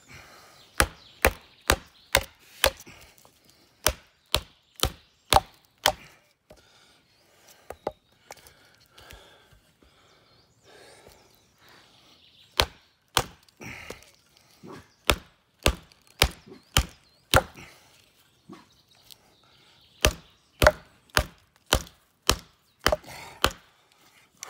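A wooden mallet strikes the spine of a carbon-steel bushcraft knife, batoning it into a log: sharp knocks about two a second, in three runs of about ten with pauses between. The blade is stuck in a hard knot and is not going through.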